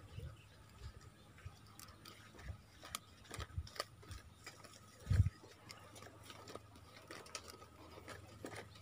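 Hands working a white plastic pipe spool, with scattered light clicks and rubbing and one low thump about five seconds in.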